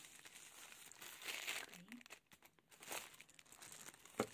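Thin tissue-paper wrapping crinkling and rustling in bursts as hands handle and begin to unwrap a hairbrush, with one sharp tap near the end.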